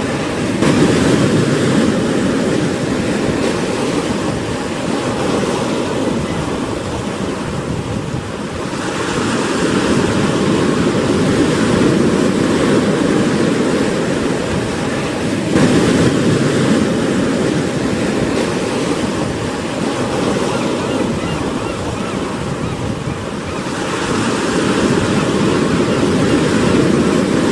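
Sea waves breaking on the shore: a steady wash of surf that swells four times, about every seven to eight seconds, as each wave comes in.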